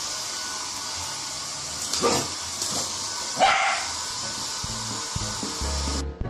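Hair dryer blowing with a steady hiss while a dog barks twice, about two seconds in and again about a second and a half later. The dryer cuts off near the end as music starts.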